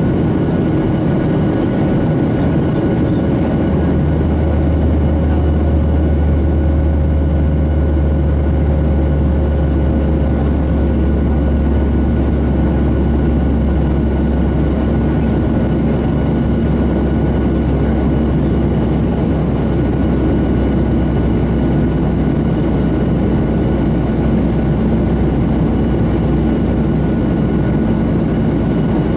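Cabin noise of a Boeing 737-700 climbing out, heard from a window seat over the wing: the steady drone of its CFM56-7B turbofans and rushing air, with a few steady tones. One higher tone fades away about ten seconds in as a lower one comes in.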